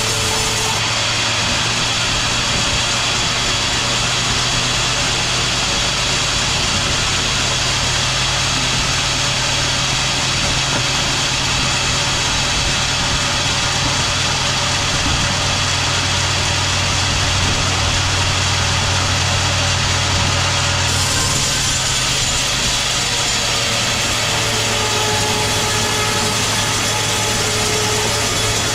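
Sawmill machinery running steadily: a deep hum with many steady high tones over it. The sound shifts about two-thirds of the way through, the hum easing and new tones entering.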